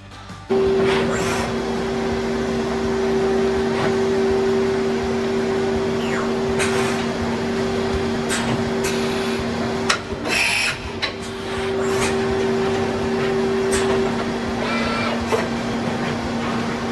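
Micro Dynamics MEGA 30VT CNC vertical machining center running, its spindle giving a steady two-pitched hum, with short rushes of noise every few seconds as it machines the workpiece. The higher of the two tones drops out near the end.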